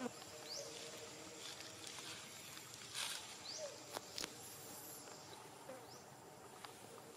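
Faint outdoor ambience: a steady high insect drone, with short rising chirps every second or two and a few sharp clicks a little past the middle.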